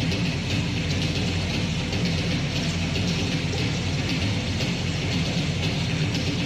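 Live punk rock band playing, recorded as a dense, distorted, unbroken wall of sound with strong bass and bright, hissy highs.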